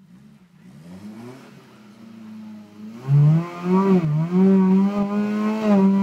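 Small off-road 4x4's engine revving under load as it climbs a rock ledge. The revs rise over the first few seconds, then the engine runs loud and high from about halfway, with a brief dip in revs.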